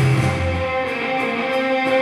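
Background music led by guitar; the low bass drops out about half a second in, leaving higher sustained notes.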